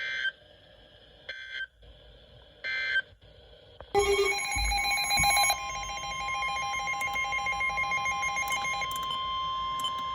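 Emergency Alert System signalling between two broadcast weather warnings: three short electronic data bursts about a second apart, the end-of-message code closing the previous warning. About four seconds in, a loud alert tone starts, a steady tone with a pulsing, ringing layer over it that carries on past the end.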